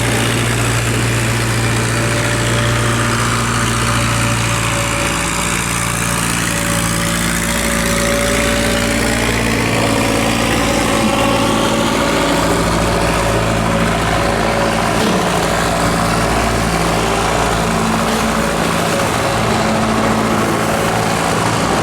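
Heavy diesel engine of a cargo barge running at full throttle, a loud steady drone with higher tones that slowly sweep up and down.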